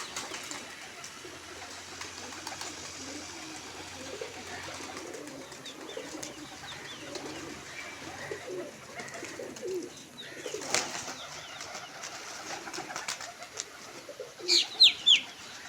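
Domestic pigeons cooing in a low, continuous, wavering murmur. There is a brief rustle about ten seconds in, and a few sharp, high chirps near the end are the loudest sounds.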